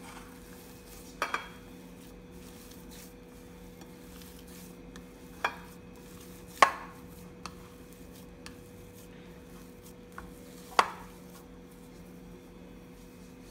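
A hand kneading mashed potato mixture in a ceramic bowl, with a few sharp knocks against the bowl, the loudest about six and a half seconds in, over a steady low hum.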